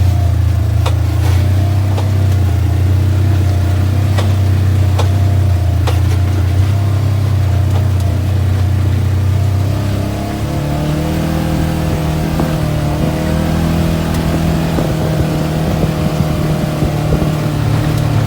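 2017 Polaris General side-by-side with its engine running, and sharp pops every second or so over the first half. The owner reports these as knocking or popping from the front end. About ten seconds in, the engine note rises and turns rougher.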